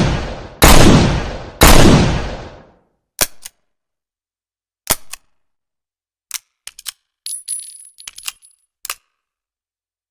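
Smith & Wesson 686 .357 Magnum revolver firing two shots about a second apart, each with a long echoing tail. Then comes a scatter of sharp metallic clicks, with a brief high metallic ring near the middle.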